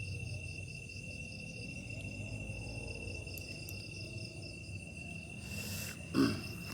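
Crickets and other night insects trilling steadily in a high continuous chorus over a low rumble. Near the end comes a brief rustle, then a short, louder sound.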